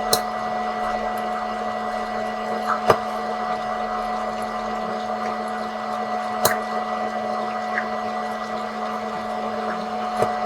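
Small electric popcorn machine running with a steady motor hum, with a few sharp kernel pops spread a few seconds apart.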